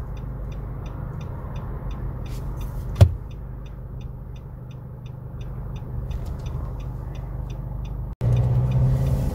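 Car cabin road and engine noise while driving: a steady low rumble with light, regular ticking about three times a second and one sharp click about three seconds in. The rumble gets louder about eight seconds in.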